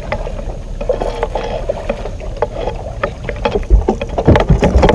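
Clicks and knocks of a baitcasting reel and rod being worked as a hooked bass is reeled in, over steady low background noise, with heavier thumps on the boat deck in the last second and a half.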